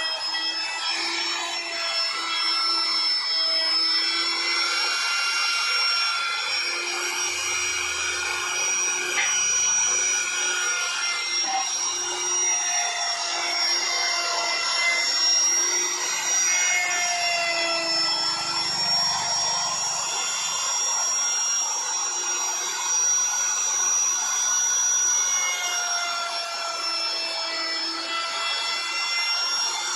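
Handheld ENDICO electric router running continuously with a high steady whine as its small bit carves a relief pattern into a wooden door panel. The pitch sags slightly now and then as the cut loads the motor.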